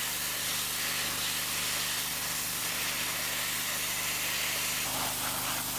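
Pressure washer blasting a jet of water onto old brass slip rings to wash off decades of grime: a steady hiss of spray with a steady low hum underneath.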